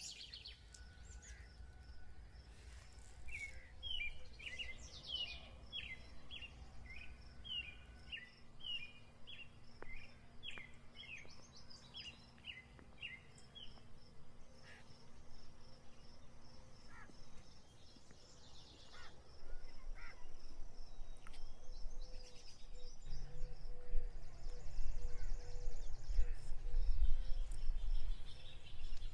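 A bird gives a run of short, repeated chirps for several seconds in the first half, over steady outdoor background noise. In the second half a low rumbling grows louder, becoming the loudest sound near the end.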